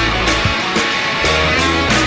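Background rock music led by electric guitar, with bass and a steady drum beat.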